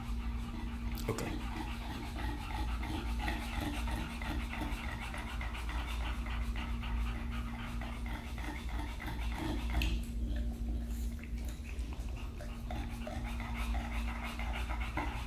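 English bulldogs panting, a quick, even rhythm of open-mouthed breaths, over a steady low hum.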